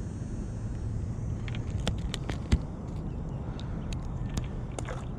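Steady low outdoor rumble with scattered light clicks and taps, the sharpest about two and a half seconds in.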